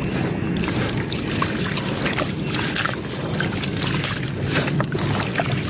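Chunks of dried sand-cement being crushed, a continuous crunching with many small, sharp crackles scattered throughout.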